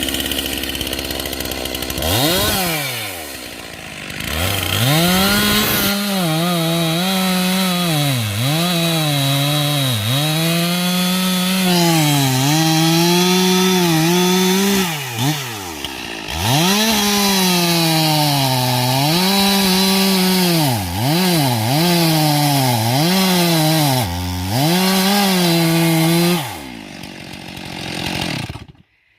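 Stihl two-stroke chainsaw running at high revs while cutting firewood, its engine note dipping and climbing back again and again as it takes and loses load. Near the end it falls to idle and then cuts out.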